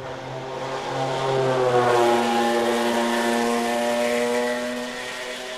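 A racing car's engine passing at speed through a fast left-right corner. The note swells to its loudest about two seconds in, holds steady, then fades away near the end.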